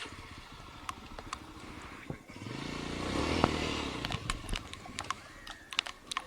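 A motor vehicle's engine passes close by on a wet dirt track, rising to a peak in the middle and then fading, with scattered sharp clicks and taps around it.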